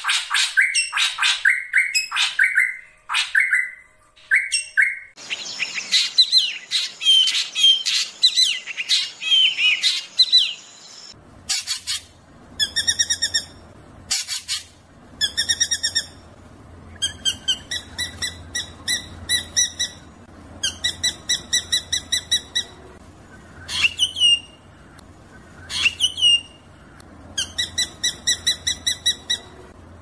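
Drongo (srigunting) song: fast runs of sharp repeated notes, then, from about a third of the way in, rolling bursts of short ringing notes lasting a second or two each, broken twice near the end by a swooping call. The character changes abruptly twice, as if separate recordings are joined, and a faint low hum lies under the later part.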